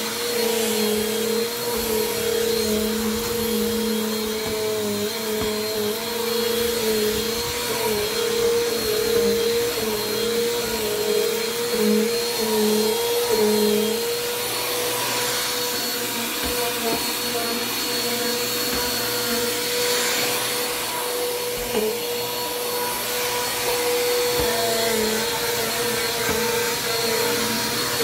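Bissell PowerForce Compact Turbo, a 6.2-amp bagless upright vacuum, running while it is pushed over carpet. Its steady motor whine wavers slightly in pitch for about the first half, then holds steady over the rush of air.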